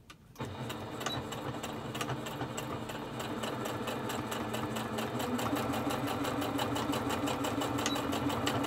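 Domestic electric sewing machine stitching a seam. It starts about half a second in and runs steadily with a rapid, even needle rhythm.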